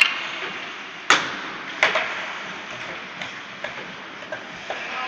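Hockey sticks and puck clacking on the ice and boards, each knock echoing in the rink hall: three sharp knocks in the first two seconds, then lighter taps.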